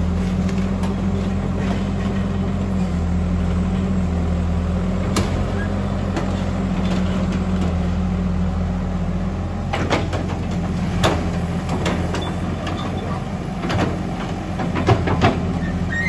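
Old Caterpillar hydraulic excavator's diesel engine running steadily under work, a low even drone. In the second half there are several sharp metallic clanks and knocks from the working machine.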